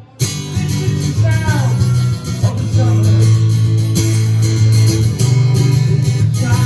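Live punk rock band playing an instrumental break: loud guitars over a steady bass line, with no lead vocal.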